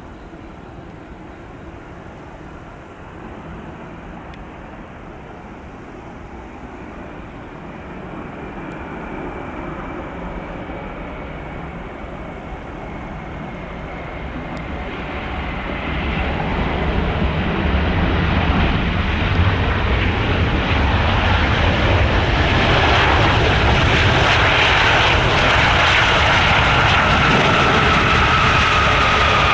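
Airbus A380's four Rolls-Royce Trent 900 turbofans during landing and rollout: a steady jet-engine rush that grows steadily louder as the aircraft comes nearer, with a high whine that falls in pitch near the end.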